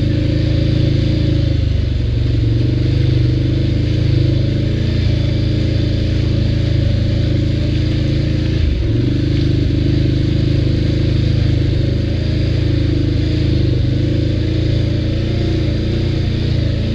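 ATV engine running steadily under way, its pitch dipping briefly and picking up again just under nine seconds in.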